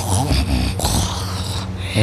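A man in exhausted deep sleep snoring loudly, with low rasping breaths.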